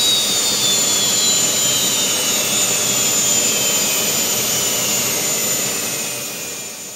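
Turbine engine of a modified pulling tractor spooling down after its pull: a loud rush of jet noise with a high whine that falls slowly in pitch. It fades out near the end.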